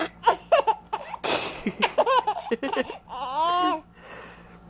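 Four-month-old baby laughing in a run of short breathy bursts, then a drawn-out squeal about three seconds in.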